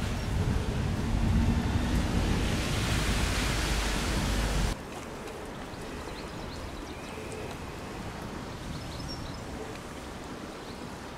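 Wind rushing and buffeting over a camera microphone on a moving bicycle: a loud steady rush with heavy rumble that cuts off abruptly about five seconds in, leaving a quieter steady hiss.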